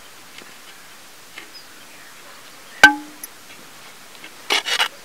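A metal slotted ladle knocks once against the rim of a cooking pot with a sharp clink that rings briefly, while cooked rice is being layered over the prawn masala. Near the end comes a short scraping rustle as the ladle scoops through the rice.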